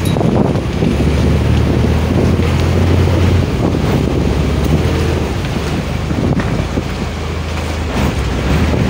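Small passenger boat's engine running with a steady low hum as it comes alongside a quay, the hum strongest in the first few seconds, under heavy wind noise on the microphone and churning water.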